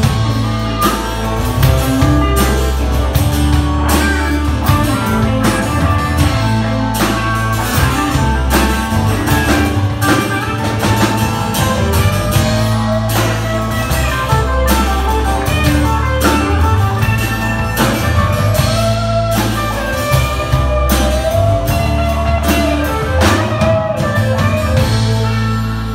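Live country-rock band playing an instrumental passage: electric guitars with bending lead lines over bass guitar and a drum kit keeping a steady beat.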